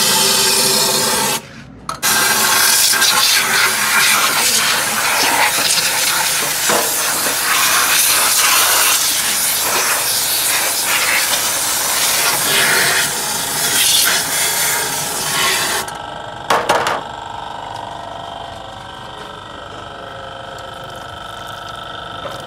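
Compressed-air spray gun hissing as it blasts cleaning fluid over a plastic engine intake manifold, with a short break about a second and a half in. The spraying cuts off about three-quarters of the way through, leaving a quieter steady hum and liquid draining off the manifold into a metal tray.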